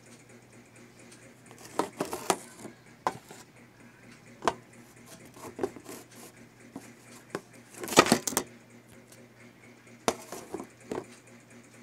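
Scattered light clicks and knocks, with a louder cluster of clattering knocks about eight seconds in, over a steady low hum.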